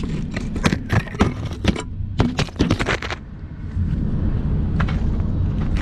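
Close handling noise picked up by the drone's own GoPro: a quick run of sharp clicks, knocks and scrapes as the crashed FPV drone is grabbed and dragged over gravel and concrete. After about three seconds it settles to a low steady rumble, with a couple more clicks about five seconds in.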